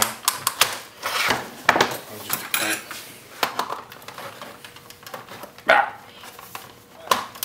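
Irregular plastic clicks, scrapes and knocks as a screwdriver pries at the plastic housing of a Cisco desk phone and the phone is shifted on the workbench, with one sharper knock a little before six seconds in.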